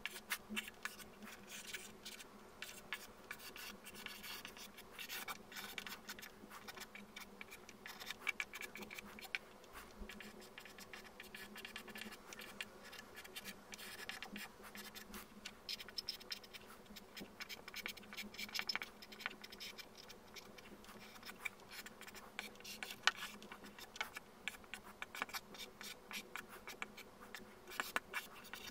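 Pencil lead scratching across paper in many quick, irregular strokes as a sketch is drawn.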